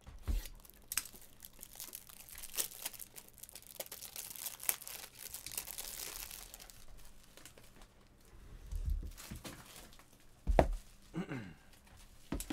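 Plastic wrappers on trading card packs being torn open and crinkled for several seconds, followed by a few dull thumps near the end.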